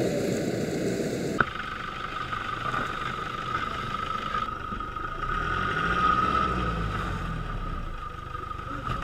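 A 4x4 off-road vehicle crawling slowly over the ground, its engine a low rumble that swells around the middle as the underside passes overhead, with a steady high whine throughout. A sharp click about a second and a half in.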